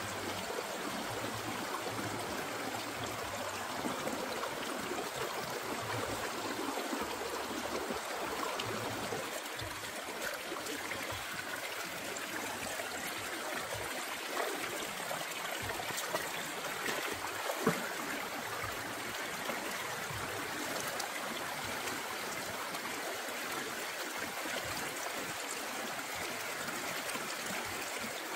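Water flowing steadily, with a faint knock about two-thirds of the way through.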